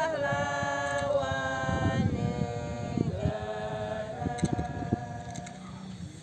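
Unaccompanied group singing, slow, with long-held notes and short gliding changes of pitch between them.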